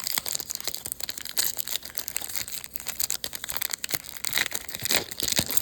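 Baseball trading cards and their pack wrapper being handled: continuous crinkling and rustling with many small irregular clicks and snaps.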